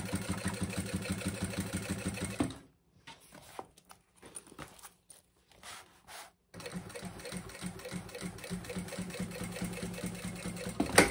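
Sewing machine stitching a seam at a fast, even rhythm, stopping about two and a half seconds in. After a few seconds of small handling sounds it starts again and runs on, with a few sharp clicks near the end.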